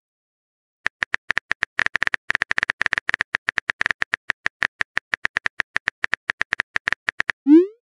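Synthetic phone-keyboard typing clicks from a texting-story app, rapid and fairly even at several taps a second, as a message is typed out letter by letter. Just before the end a short rising tone begins, the app's message-sent sound.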